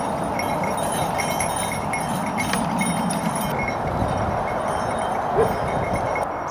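Light, repeated metallic jingling of a working draught horse's harness, over a steady rushing background noise.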